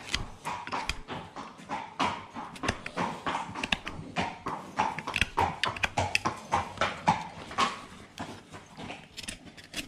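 Farrier's hoof knife scraping and paring a horse's dry, flaky sole in quick, irregular strokes.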